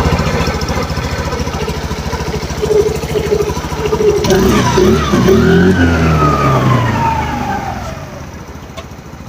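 TVS Jupiter ZX scooter engine running. About four seconds in it is revved, then winds down with a falling whine, and the sound fades near the end.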